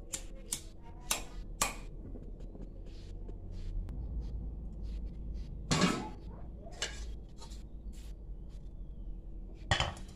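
Gas burner being lit: a few sharp clicks from the knob and igniter, a louder rush about six seconds in as the flame catches, and a low steady burner noise. Near the end a metal wok is set down on the burner with a clatter.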